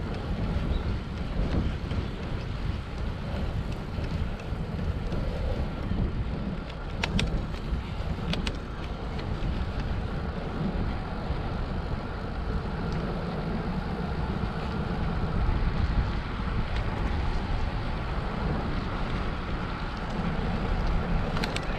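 Wind rushing over the microphone while riding a bicycle, a steady low rumble, with a couple of short clicks about seven and eight and a half seconds in.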